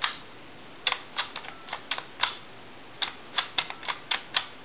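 Touch-tone telephone keypad buttons pressed one after another: a quick run of sharp plastic clicks in two bursts with a short pause between. The digits are being dialed through as a check of the freshly repaired keypad.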